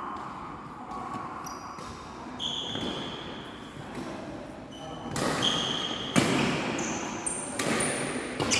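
Badminton rally: rackets striking the shuttlecock in sharp cracks about a second apart in the second half, with short high squeaks of court shoes on the floor throughout.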